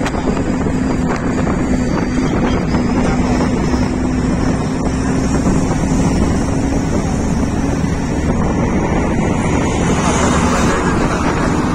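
Steady engine hum and road noise of a moving vehicle in traffic, with wind noise over the microphone.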